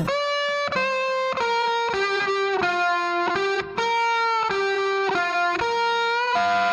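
Background music: a solo electric guitar melody of single held notes, about two a second, over no drums.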